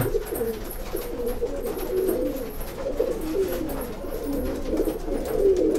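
Domestic Rakdher pigeons cooing, a low wavering coo repeated over and over, with several calls overlapping.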